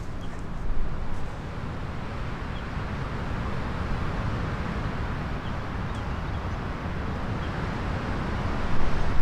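Strong mountain wind buffeting the microphone: a steady rushing with a rumbling low end that swells louder near the end.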